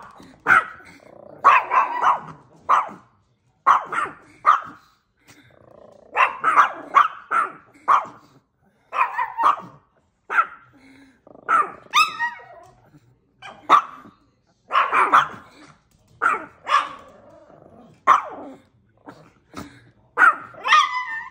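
Chihuahua alarm barking at something outside the window: sharp barks in quick runs of two to four, with short pauses between, and a higher, wavering cry about halfway through.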